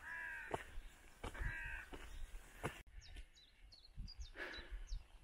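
A crow cawing twice, each call a harsh drawn-out caw. In the second half a small songbird gives short, high, quick chirps.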